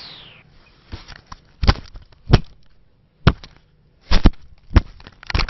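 Irregular sharp knocks and thumps, about eight over five seconds, several of them in quick pairs.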